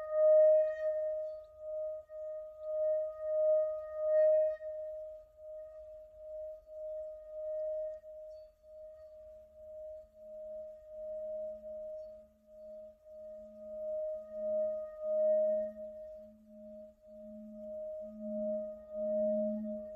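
Hand-held Tibetan singing bowl ringing with a steady, wavering hum that swells and fades in slow pulses. A second, lower tone comes in about halfway through and grows louder toward the end.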